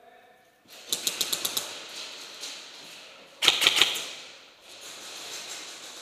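Airsoft gun firing two short rapid-fire bursts of clicking shots. The first comes about a second in; the second, louder, comes about three and a half seconds in.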